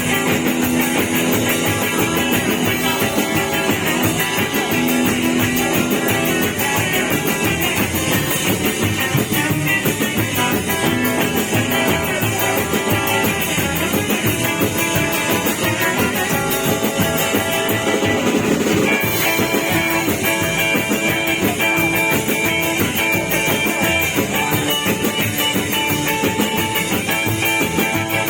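Rock band music with guitar and drum kit playing steadily.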